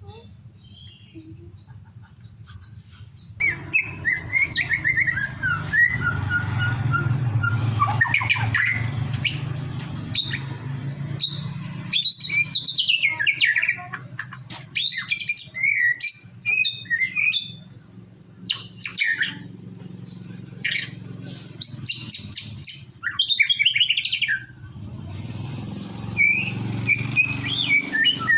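White-rumped shama (murai batu) singing: varied, rapidly changing whistled phrases in bursts with short pauses, starting a few seconds in. A steady low hum runs underneath.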